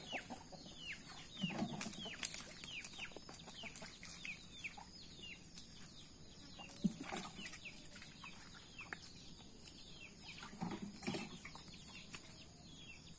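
Birds chirping in many quick, falling notes, over a steady high hiss.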